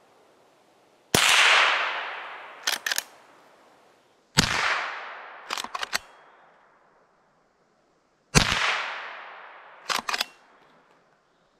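Three shots from a Henry H001 .22 rimfire lever-action rifle, about three to four seconds apart, each echoing away over a couple of seconds. Each shot is followed by a quick two or three metallic clicks as the lever is worked to chamber the next round.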